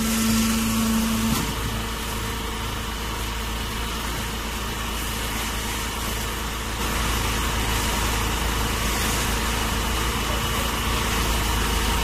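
Steady drone of a running straw bagging baler, its motor and hydraulic pump humming. A steady whine in it stops about a second and a half in.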